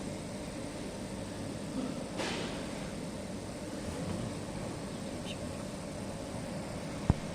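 MOPA fiber laser marking machine running with a steady hum, a brief hiss about two seconds in and one sharp click near the end.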